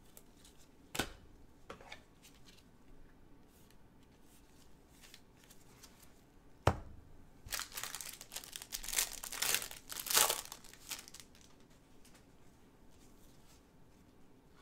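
Trading cards and their packaging being handled by gloved hands: a sharp click about a second in, a louder snap about halfway through, then a few seconds of crinkling and tearing as a pack is opened.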